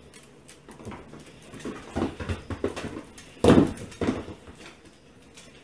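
A young goat's small hooves and a dog's paws clattering and tapping on a hardwood floor as the two scamper about. The loudest sound is a short burst about three and a half seconds in.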